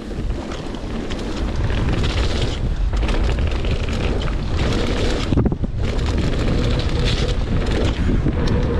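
Propain Tyee mountain bike descending a dirt trail at speed: wind buffeting the microphone over tyre noise on the soft ground and the bike rattling. The rolling noise drops out briefly about five and a half seconds in.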